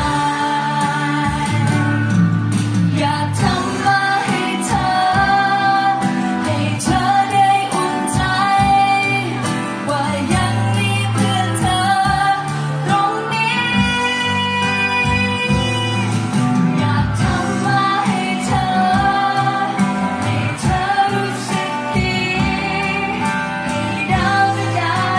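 A woman sings a Thai pop song live into a microphone, accompanied by acoustic guitar.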